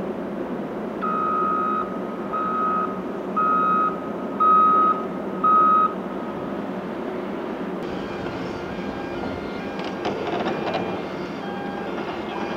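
Caterpillar 988K XE wheel loader's reversing alarm beeping five times, about once a second, over the steady running of its engine. About two-thirds of the way in, the sound gives way to a wider, brighter machinery noise with scattered clicks from the mobile crusher working.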